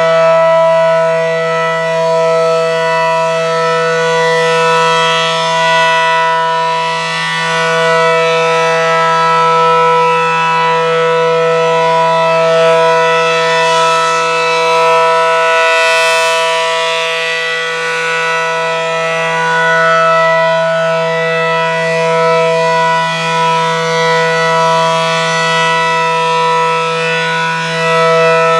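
Low-pitched ACA Allertor outdoor warning siren sounding a steady alert tone, its pitch held level and rich in overtones, the loudness swelling and fading gently.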